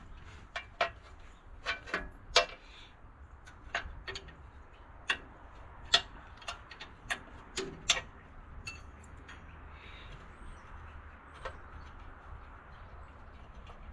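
Irregular clicks and knocks of hand tools at work on the tractor's seat bolts, most of them in the first eight seconds and fewer after.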